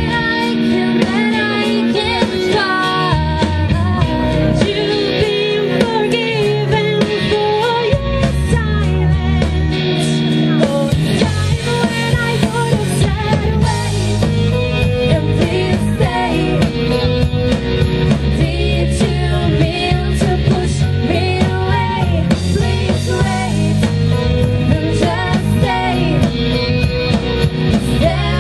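Live rock band playing: two female vocalists singing into microphones over electric guitar and a drum kit.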